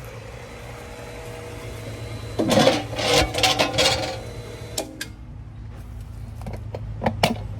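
A steady low mechanical hum, with a burst of rattling and clattering about two and a half seconds in that lasts under two seconds, then a few sharp clicks near the end.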